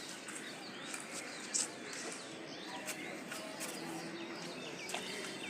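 Small birds chirping in short, quick calls over steady outdoor background noise, with one sharp click about a second and a half in.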